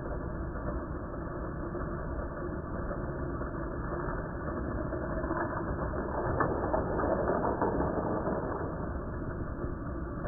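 Vintage Hot Wheels track set running: a steady mechanical whirring and rattling, like a small geared motor, louder with a few clicks a little past the middle.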